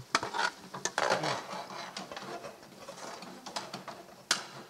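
Metal ladle stirring a thick, creamy mixture in a steel pan, scraping and clicking irregularly against the metal, with one sharper knock near the end.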